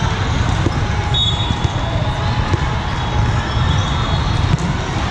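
Din of volleyball play in a large convention hall: balls bouncing and being struck, over a steady background of crowd noise, with a brief high squeak about a second in.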